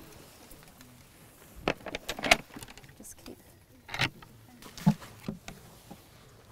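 Scattered knocks, clicks and rustling from hands opening and handling a kiwi transport box, with light metallic clinks of its latches.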